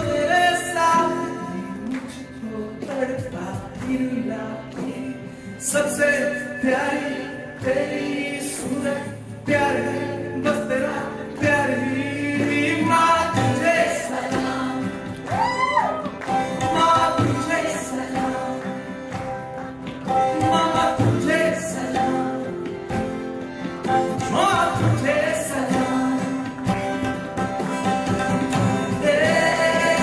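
Live Indian song from a small ensemble: a male lead voice sings with ornamented, sliding phrases over acoustic guitar, a steady harmonium drone, tabla and cajon, with other voices joining in.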